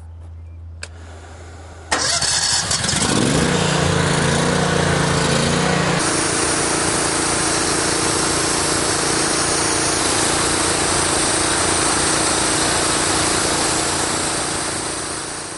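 The Honda gas engine of a hot water pressure washer starts about two seconds in, runs up to speed, then runs steadily. About six seconds in a high spraying hiss joins it as the gun is triggered to purge air out of the hose.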